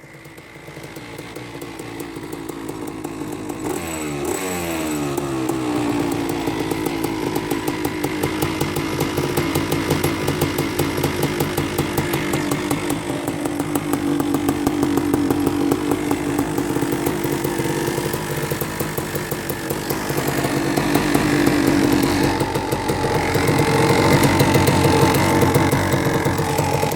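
Small single-cylinder gasoline engine revving up in the first few seconds, then running steadily under throttle with a fast, buzzy pulse that rises and falls a little.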